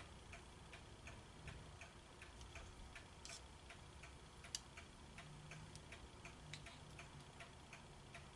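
Faint, steady clock ticking, about three ticks a second, with one sharper click about four and a half seconds in.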